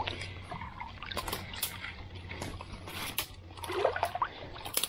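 Water sloshing and trickling as a person wades knee-deep through shallow water among mangrove roots. Scattered sharp snaps and rustles come from twigs and leaves being pushed aside.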